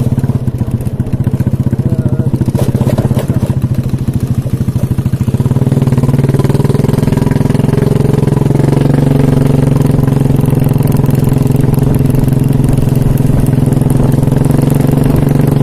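Small motorcycle engine running close by at a steady speed; it gets louder and steadier about five seconds in.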